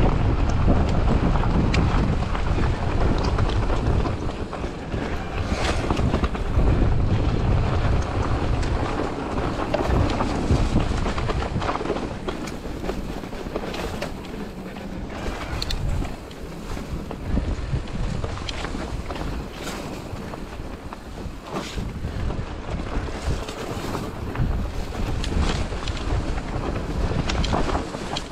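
Wind buffeting the microphone over the rumble of an electric mountain bike's tyres on a stony trail, with frequent clicks and knocks as the bike rattles over rocks. The wind rumble is heaviest in the first few seconds, then eases.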